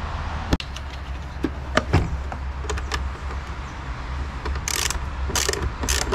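Ratchet wrench clicking as it is worked on the positive battery terminal clamp nut: a few scattered clicks and knocks, then from near the end a run of quick repeated ratcheting strokes, about three a second.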